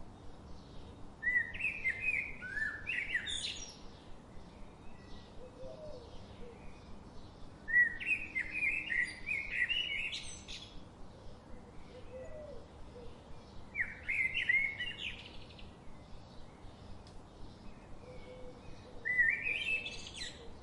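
A songbird singing the same short warbled phrase four times, about every six seconds, each phrase ending in a quick rising flourish, with fainter birds chirping between the phrases.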